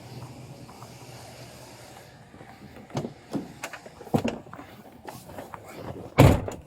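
A steady low vehicle hum, then a few scattered knocks and thuds, the loudest a heavy thud about six seconds in.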